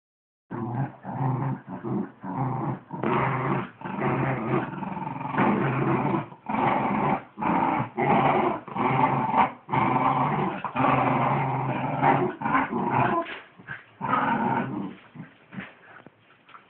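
Wire fox terriers growling in play during a tug-of-war over a sock: growls come in bursts one after another, with short gaps, and die away near the end.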